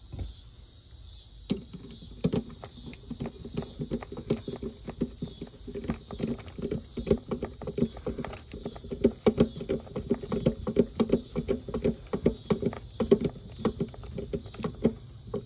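Irregular light taps and clicks, sparse at first, then coming thick and fast from about a second and a half in, over crickets chirping steadily.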